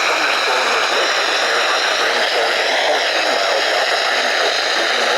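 Steady radio static: a dense hiss from a radio receiver on a noisy signal, holding at one level throughout.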